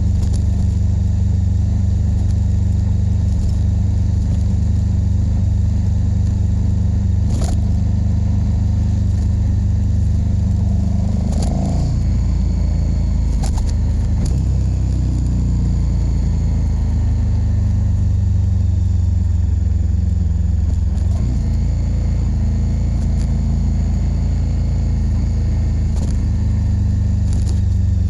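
KTM 1290 Super Duke R's V-twin engine running under way, a heavy low rumble with the engine note shifting up and down about halfway through, and a few sharp clicks.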